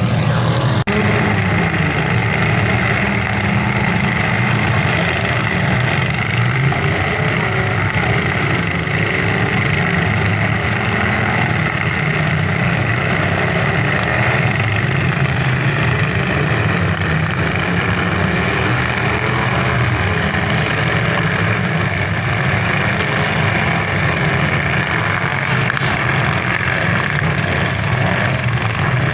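Demolition derby car engines running steadily, a loud, continuous low engine drone with a noisy hiss over it.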